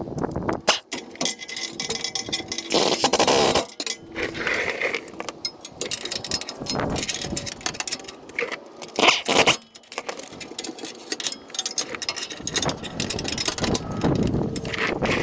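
Irregular clanks and scrapes of metal tools and parts as the transmission cross member bolts are tightened on the truck's underside.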